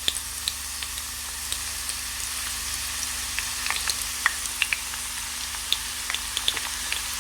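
Crushed garlic, carom seeds and mustard seeds frying in mustard oil: a steady sizzle with scattered small pops and crackles as the garlic cooks toward brown.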